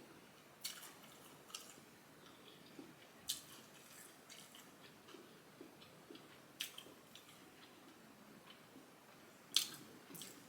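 Close-miked eating: chewing with a handful of short, sharp wet crunches and smacks a second or few apart, the loudest near the end.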